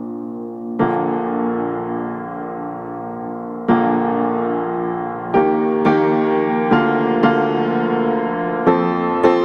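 Background piano music: held chords, with new notes struck slowly at first, then more often from about halfway through.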